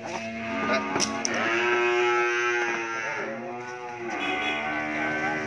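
A cow bawling in two long, drawn-out calls, the first about a second in and the second near the end, as it is forced up a truck's loading ramp.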